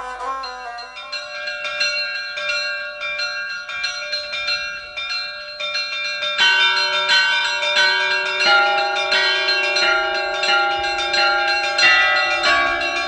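Orthodox church bells of Hilandar monastery ringing a peal: several bells struck in a busy, irregular pattern, each note ringing on. Lower, louder bells join about six seconds in.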